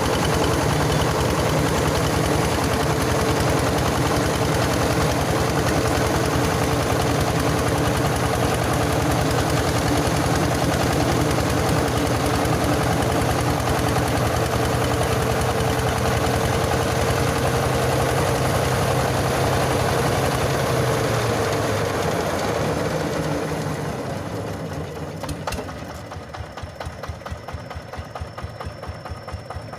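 Mobile rice huller running under its Yanmar 20 single-cylinder diesel engine: a loud, dense milling rush with a steady whine. About three-quarters of the way through the milling noise fades away, leaving the diesel beating steadily at idle.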